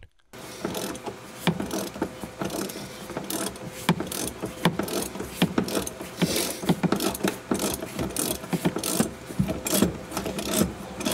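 Hand ratchet clicking over and over as it turns out a rusted Torx-head seat belt anchor bolt, loosened with penetrating oil, that has started to move.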